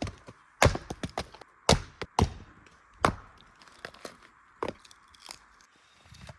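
Firewood being worked: a run of sharp wooden knocks and cracks at irregular intervals, closer together in the first half and sparser toward the end.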